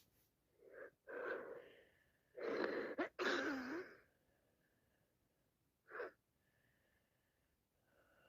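A woman sneezing with sinusitis: two catching in-breaths, then one loud sneeze about two to four seconds in. One short, sharp sniff follows about six seconds in.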